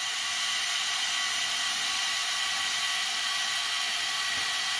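The iOptron SmartEQ Pro equatorial mount's drive motors slewing the camera toward a target: a steady, high-pitched motor whir with a few fixed tones, a little noisy while it moves.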